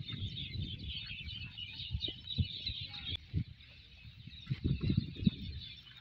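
A chorus of many small birds chirping and twittering, with low thumps and rustling underneath that are loudest a little after the middle.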